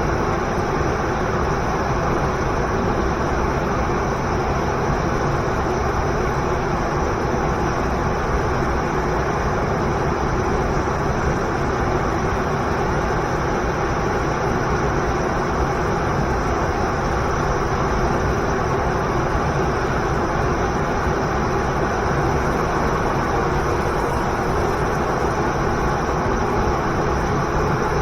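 Waterfall and river water rushing, a loud, steady roar with no change.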